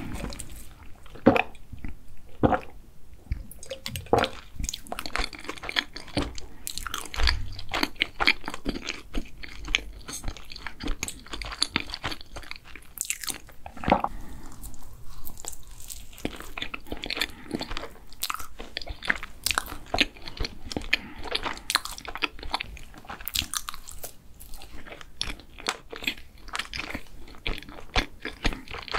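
Close-miked eating of a banana Nutella doughnut: biting and chewing, a dense run of short sharp mouth sounds throughout.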